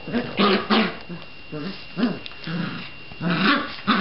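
Sheltie puppy growling and yapping in short bursts, about six or seven in quick succession, while playing tug with a toy. The longest burst comes near the end.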